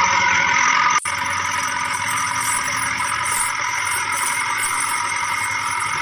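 A vehicle engine running steadily, with a momentary break about a second in.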